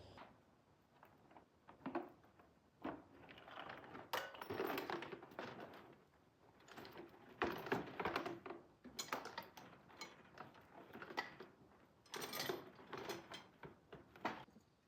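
Metal tools and machine parts being handled: irregular clinks, clatters and short scrapes in bursts, with brief pauses between them.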